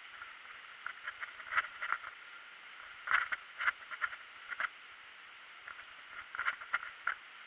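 Mountain bike rolling over a gravel and dirt track: a steady rolling hiss from the tyres, broken by clusters of sharp rattles and clatter as the bike jolts over bumps.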